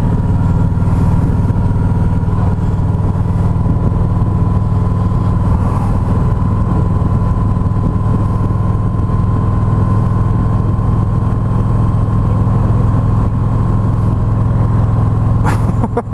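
Road vehicle engine running at a steady cruise: a constant low drone with a faint steady high tone above it.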